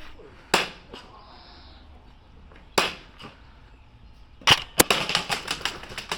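Airsoft gun shots: a single sharp crack about half a second in, another near three seconds, then a quick string of shots at about six or seven a second over the last second and a half.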